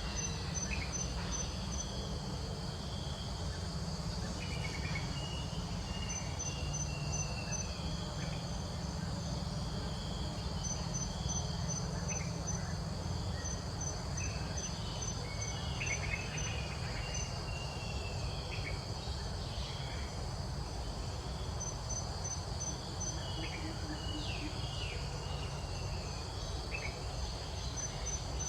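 Insects droning steadily, with a fast pulsed high trill that starts and stops every few seconds, and scattered short falling whistled calls over a low background rumble.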